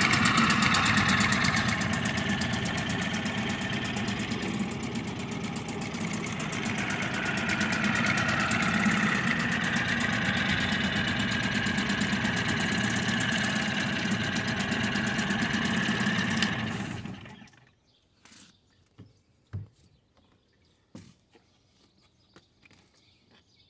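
1966 Mercury Merc 39 single-cylinder two-stroke outboard running steadily in a test tub, easing off briefly and picking up again, then shutting off about seventeen seconds in. A few faint clicks follow.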